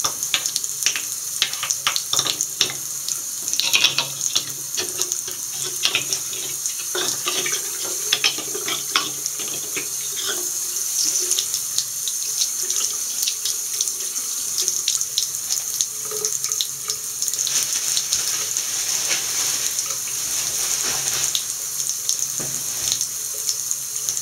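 Tap running into a bathroom sink, the stream splashing unevenly as a hand works in it for about the first ten seconds, then pouring steadily into the drain.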